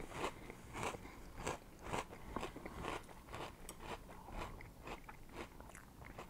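A person chewing a mouthful of frosted oat cereal and marshmallows in milk, with soft crunches about twice a second.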